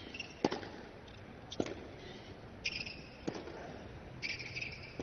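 Tennis rally on a hard court: sharp pops of rackets striking the ball and the ball bouncing, roughly every second or so. Twice a player's short high-pitched grunt rings out with a shot.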